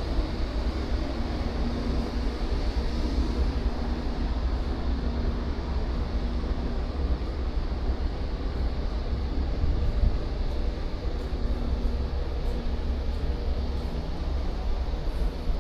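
Steady low rumble and hiss of a cruise ship's ambient noise, with a faint steady hum underneath.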